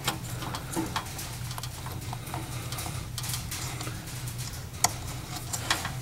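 Light plastic clicks and taps of a small wire clip and connector being handled and pried open by fingers, with one sharper click about five seconds in.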